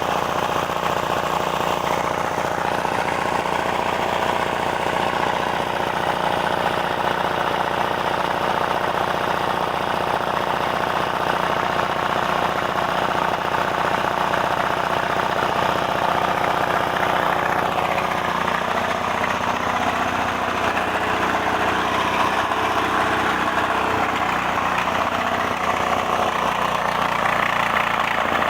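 Diesel engine running steadily at a constant speed.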